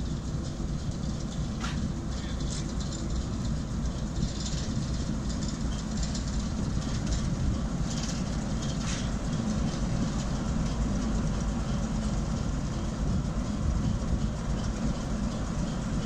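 Class 08 diesel shunter's English Electric six-cylinder engine running steadily as the locomotive rolls slowly towards the listener, with a few short high squeals and clicks from its wheels on the track.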